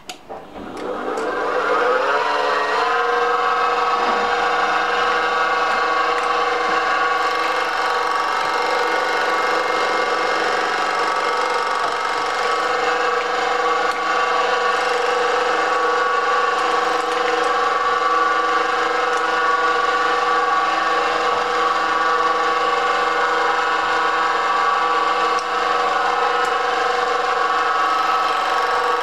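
Carba-Tec benchtop milling machine starting up: the motor winds up to speed over about two seconds with a rising whine, then runs steadily.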